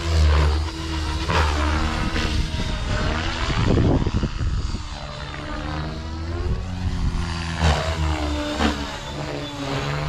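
Blade Fusion 550 electric RC helicopter in flight: a rotor whoosh and motor whine whose pitch keeps rising and falling as it swoops past and climbs away. There is a brief loud rush of noise about four seconds in.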